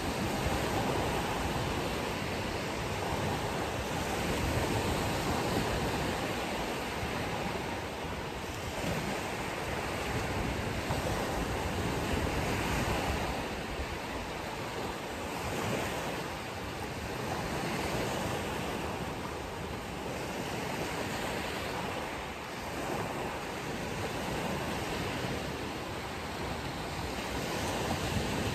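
Ocean surf washing onto a beach: a steady rush that swells and eases every few seconds.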